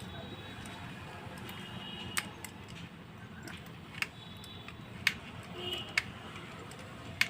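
A few sharp small clicks and taps, about five spread over several seconds, over a steady low hiss: a wire and tool being worked into a socket terminal on a switchboard.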